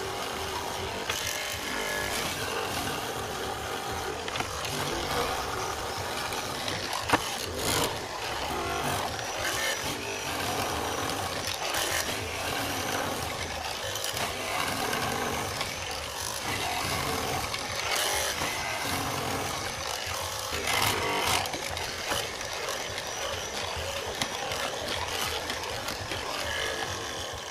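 Electric hollow-chisel mortising machine running, its square chisel plunging again and again into a timber beam to cut a mortise. Sharp knocks come at irregular moments through the cutting.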